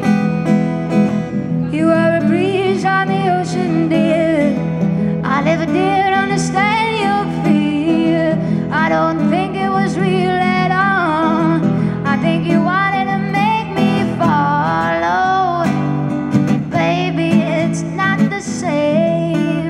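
A woman singing an original blues song to her own acoustic guitar. The guitar plays alone for about two seconds before her voice comes in.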